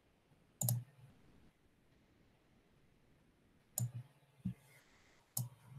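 Computer mouse clicks, sharp and short: one a little under a second in, then three more spread over the last two seconds.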